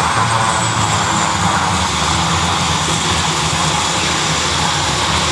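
Aircraft flying past: loud, steady engine noise with a low rumble and a faint high whine that slowly falls in pitch over the first couple of seconds.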